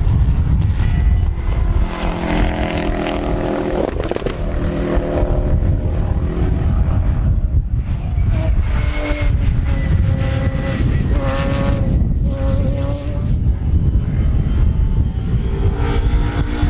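Race car engines rising and falling in pitch as the cars drive through the track, with the note breaking off and picking up again several times in the middle, over heavy wind buffeting the microphone.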